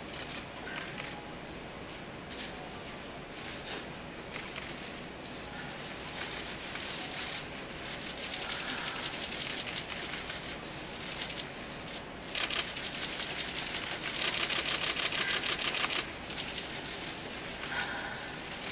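Audience applauding, a dense patter of many hands clapping that swells in waves and is fullest from about two-thirds of the way through.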